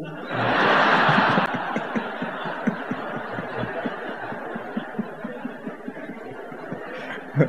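Audience laughing at a joke's punchline: the laughter swells about a third of a second in, is loudest for about a second, then slowly dies down.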